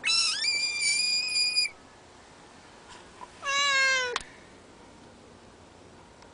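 Frog giving its distress scream twice as a cat paws at it. The first is a long, high wail of nearly two seconds; the second, about two seconds later, is shorter and lower and falls slightly in pitch.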